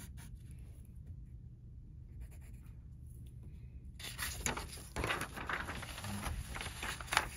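A pen scratching faintly on a paper worksheet. From about four seconds in, paper rustling and flapping as the sheet is turned over.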